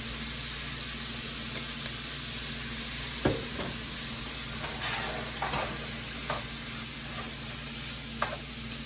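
Chorizo, onions and bell peppers sizzling in a frying pan. A sharp knock comes about three seconds in, followed by a few scrapes and clacks of a spatula stirring against the pan.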